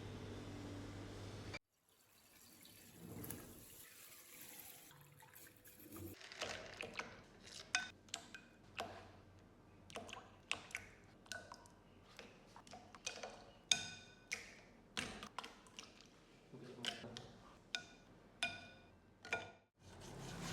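A run of irregular sharp clicks, each with a brief high ringing, about two a second, starting about six seconds in and stopping just before the end. A steady hum is heard at the very start and cuts off after a second and a half.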